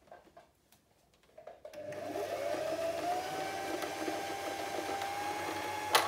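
Empisal Creations domestic sewing machine running at speed to wind the bobbin: after a quiet start, the motor whine comes in about two seconds in, rises in pitch and then holds steady over a low hum. A sharp click comes near the end.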